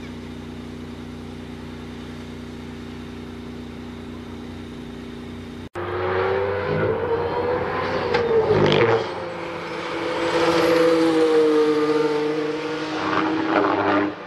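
Mercedes-AMG One's turbocharged 1.6-litre V6 with a steady, even engine hum at standstill, then, after an abrupt cut about halfway through, running loud on track. Its pitch wavers with the throttle, dips and drops in level briefly about three seconds after the cut, then climbs again.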